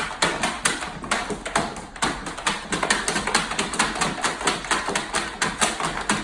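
A puppy's claws scratching and tapping rapidly on the floor of a plastic storage bin as it digs, a fast even patter of about five or six taps a second.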